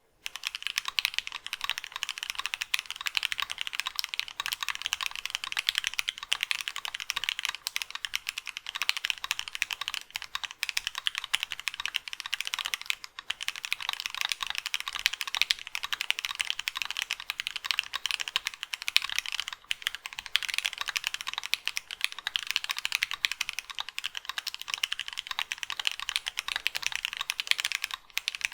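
Continuous fast typing on a mechanical keyboard with stock, factory-lubed JWK Snow White linear switches (polycarbonate top, nylon bottom): a dense, steady stream of keystroke clacks.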